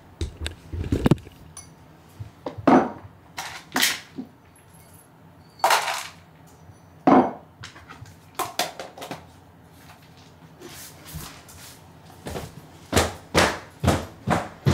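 A series of irregular sharp knocks and light clinks, some with a short ring after them, coming faster and more evenly near the end.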